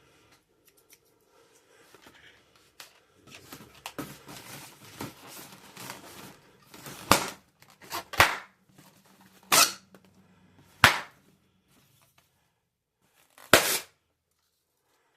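Long modelling balloons popping: five sharp bangs, irregularly spaced over about seven seconds. Before them come a few seconds of low rustling handling noise.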